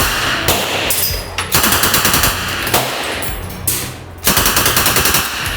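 Fully automatic rifle fired in short bursts of rapid shots, with a couple of single shots between them; two bursts, one about a second and a half in and one near the end.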